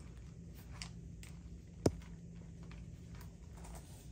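Handling of a quilted chain crossbody bag: faint rustling and ticks, with one sharp click about two seconds in as its metal turn-lock clasp is opened.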